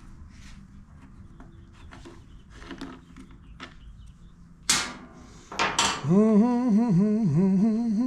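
Light clicks and taps of hand work on the blower's parts, then two short, loud rasping noises about halfway through. After them a man hums a wavering tune, which is the loudest sound and runs on past the end.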